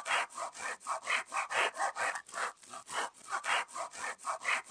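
Hand saw, a Silky Bigboy folding saw, cutting through a branch in quick back-and-forth strokes, about four a second.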